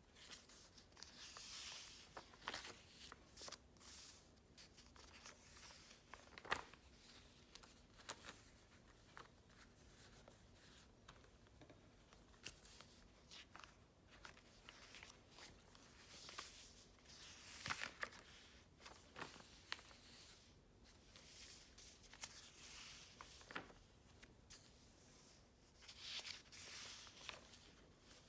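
Faint rustling and flapping of paper journal pages being turned by hand, in scattered brief swishes with a few soft taps.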